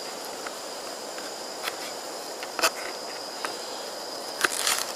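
Knife cutting mange tout on a small chopping board: a handful of sharp, irregularly spaced taps as the blade meets the board. A steady, faint high hiss runs underneath.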